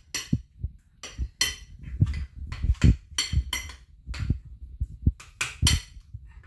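Dishes and cutlery clinking and knocking: an irregular run of sharp strikes, two or three a second, many with a short high ringing tone.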